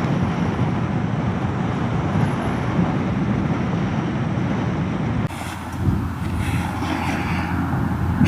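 Motorcycle on the move: engine noise and wind rush on the rider's microphone. About five seconds in the sound cuts abruptly to a quieter, steadier low engine sound with some rustling.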